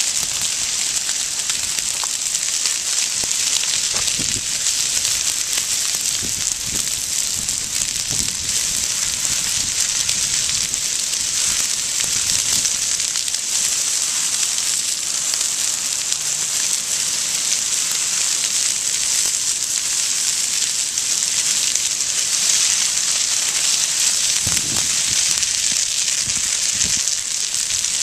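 Brush and grass fire burning close by: a steady hiss of flames with scattered small crackles and pops from burning shrubs and grass.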